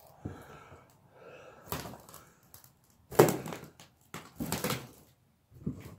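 A few short knocks and scuffs in a small empty room, the loudest about three seconds in.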